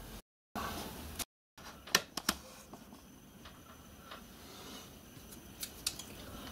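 Light clicks and taps of small objects being handled on a workbench, a cluster of sharp ones about two seconds in and a few lighter ticks near the end, over faint room hiss. The sound cuts out to dead silence twice in the first second and a half.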